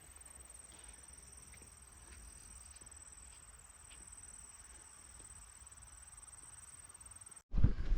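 Faint outdoor ambience with insects trilling steadily in a high, thin, unbroken tone and a few faint ticks. It cuts off abruptly near the end as louder noise begins.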